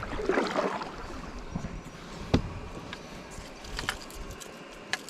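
Water moving and splashing around a kayak, with a few sharp knocks, the kind a paddle or gear makes against the hull.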